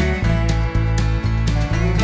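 Country-style background music with acoustic guitar and a steady beat, about two beats a second.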